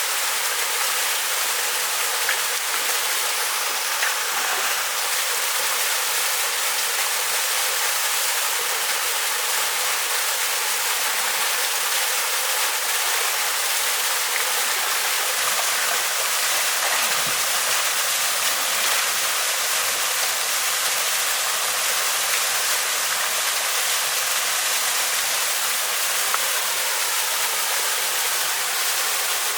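Steady rush of water from a small mountain waterfall pouring over rocks into a pool, even and unchanging.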